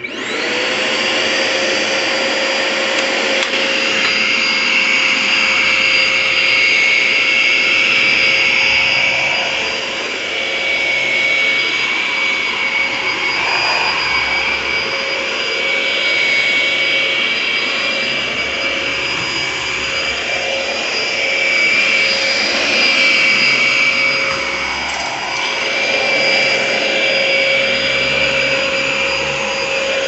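Dyson ball upright vacuum cleaner switched on, its motor spinning up within the first moment and then running steadily with a high whine. The level rises and falls as it is pushed back and forth over carpet.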